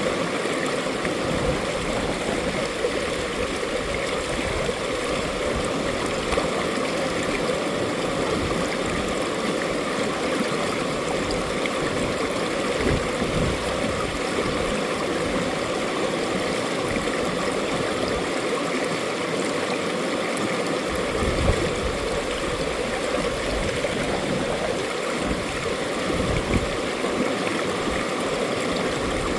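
Mountain valley stream flowing over rocks: a steady, even rush of water with irregular small gurgles and splashes.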